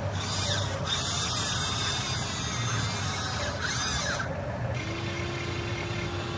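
Electric motors and gearboxes of a radio-controlled construction model whirring in several short spurts, starting and stopping, followed by a steady hum in the last second and a half.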